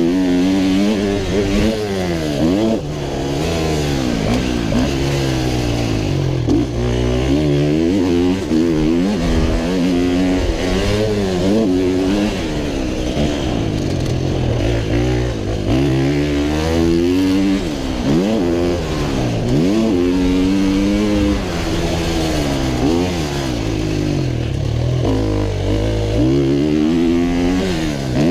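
125cc two-stroke motocross bike ridden hard, its engine pitch climbing and dropping every second or two as the throttle is opened and chopped, heard from a helmet-mounted camera.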